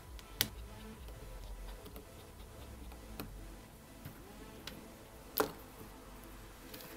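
Scattered sharp clicks and taps of small tools and screws on a smartphone being screwed back together, two of them louder, about half a second in and at about five and a half seconds.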